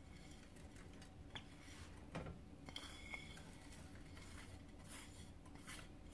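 Faint scrapes and a few light clinks as shredded cheese is pushed off a ceramic plate into a saucepan, over a low steady hum.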